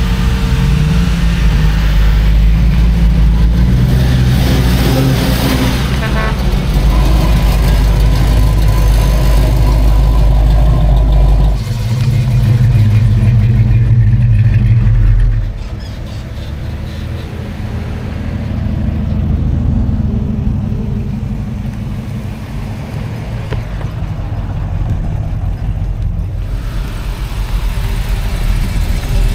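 Classic muscle cars and hot rods driving past one after another, their engines and exhausts running loud and deep. The sound is loudest for the first fifteen seconds, then drops, swelling again as further cars come by near the end.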